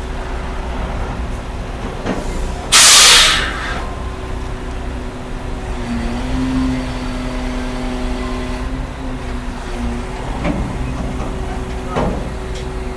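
Diesel engine of heavy machinery running steadily, its note rising briefly about halfway through. About three seconds in comes one loud hiss of released compressed air lasting about a second.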